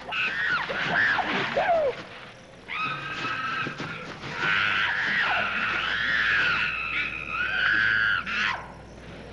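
Several chimpanzees screaming in loud, high-pitched bouts, the calls rising and falling, with a short break about two seconds in and stopping a little before the end.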